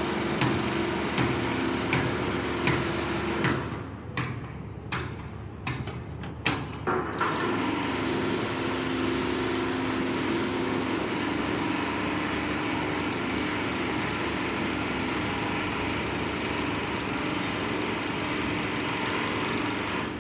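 Construction site noise: a motorised machine running with sharp bangs roughly every second, then a few separate hammer-like knocks, then from about a third of the way in a steady motor drone.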